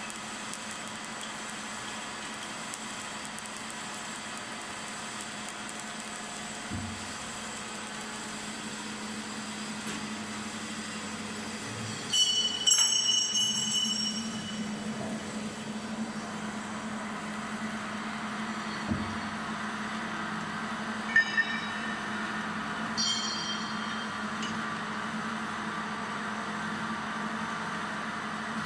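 Automatic TIG welding rig running: a steady machine hum with hiss. Brief high-pitched squealing tones come a little before halfway and again about three quarters through.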